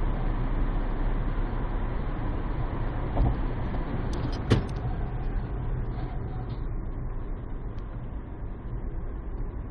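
Steady road and engine noise inside a car driving at highway speed, picked up by a dashcam. A small thump about three seconds in and a sharper knock about a second later, the loudest moment.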